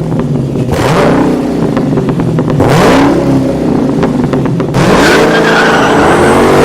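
A car engine revving repeatedly, its pitch climbing and falling several times over a steady rumble.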